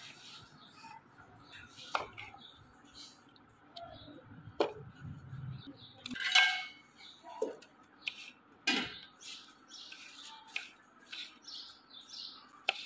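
Kitchen knife slicing and dicing watermelon rind on a cutting board: scattered, irregular taps and knocks of the blade hitting the board.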